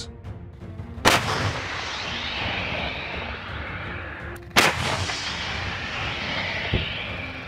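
Two heavy blasts, like artillery fire, about three and a half seconds apart, each a sharp crack followed by a long rolling rumble that slowly dies away.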